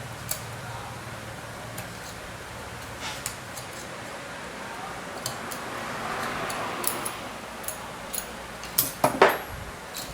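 Scattered small clicks and taps of hard objects being handled over a steady hiss, with a louder clatter of knocks about nine seconds in.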